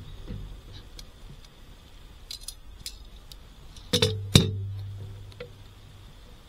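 A small campfire catching in a stainless-steel fire pit, with scattered crackles and clicks. About four seconds in come two sharp knocks, the louder second one followed by a low ring that fades away.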